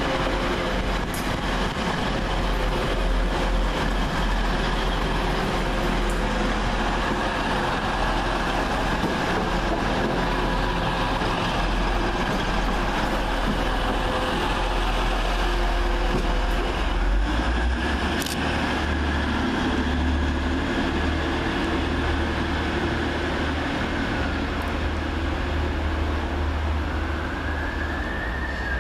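Two coupled British Rail Class 185 diesel multiple units passing and pulling away, a steady diesel rumble with wheel and rail noise. Near the end a siren rises and falls.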